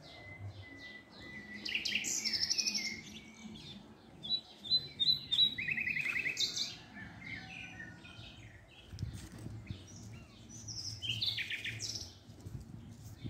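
Songbirds chirping and singing, with several short fast trills, over a low background rumble that gets stronger about two-thirds of the way through.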